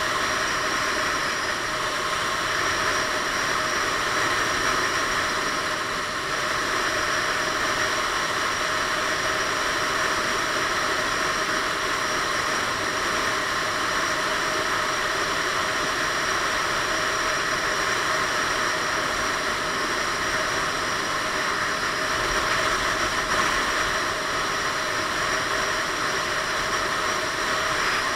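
Piaggio Beverly 500 scooter's single-cylinder engine droning at a steady cruise, mixed with a constant rush of wind on a helmet-mounted camera's microphone.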